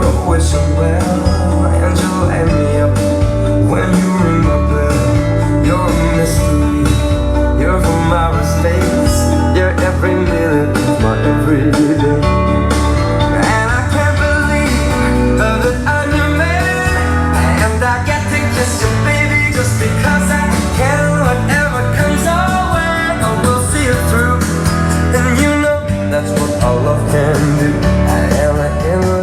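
A pop song's instrumental passage with guitar, drums and heavy bass, without clear vocals.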